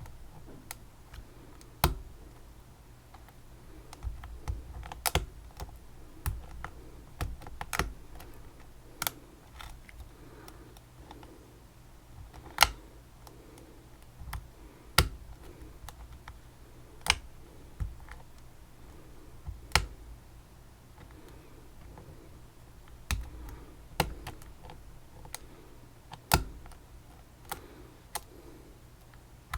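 Irregular sharp clicks and taps of metal tools and small parts against a Ving lock as it is handled and worked on, some louder than others, with softer rustling between them.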